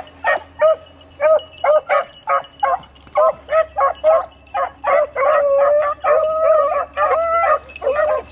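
Beagles baying on a rabbit's trail: a steady string of short chop barks, with a few longer drawn-out bawls around the middle and again near the end.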